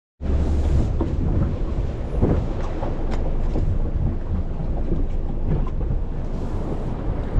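Loud, steady low rumble of a boat under way in rough sea, with wind buffeting the microphone and scattered knocks and rattles. It starts abruptly just after the beginning.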